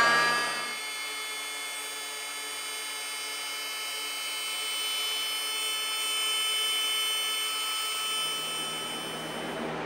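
Wagner electric heat gun running steadily, its blower motor giving a high whine, as it blows hot air to shrink heat-shrink sleeves onto wire terminals. Its pitch rises briefly at the start as the motor comes up to speed.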